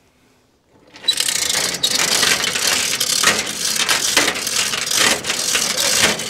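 Hand chain hoist being hauled to lift a pickup bed: its chain rattles through the block and the ratchet clicks rapidly and continuously, starting about a second in.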